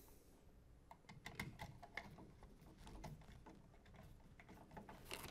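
Faint, scattered small clicks and rustles of fingers handling a plastic wall switch device and pushing a wire into its terminal, with a slightly sharper click near the end.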